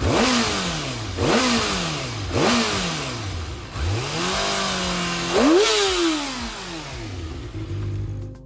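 Kawasaki ZX-10RR inline-four motorcycle engine revved through its exhaust. Three quick throttle blips a little over a second apart each fall back, then a rev is held for about a second and a half, and a last blip dies away slowly.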